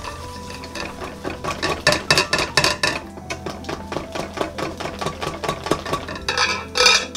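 Silicone-coated balloon whisk beating eggs and sugar in a glass bowl: rapid, rhythmic strokes of the wires clicking and scraping against the glass, several a second. The strokes grow louder about two seconds in and again near the end. The egg mixture is being warmed to 50 °C as it is whisked.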